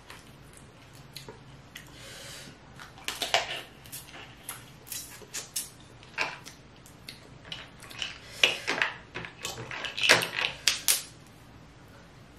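Snow crab leg shells being snapped and cracked apart by hand, with handling of shell pieces on a tray: irregular sharp cracks and clicks, the loudest cluster about ten seconds in.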